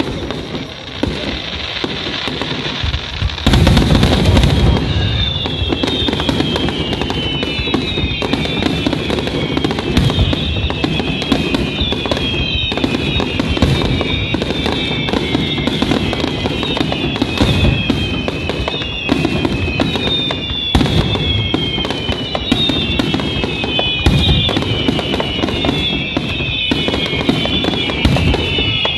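Aerial fireworks barrage: a dense run of booming and crackling shell bursts, loudest about four seconds in. A high tone that falls in pitch repeats every second or two over it.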